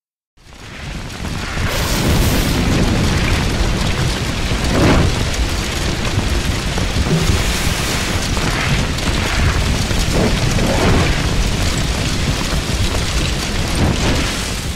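Loud, continuous, low rumbling roar with no clear pitch. It fades in after a moment of silence and carries a few slow sweeping swells.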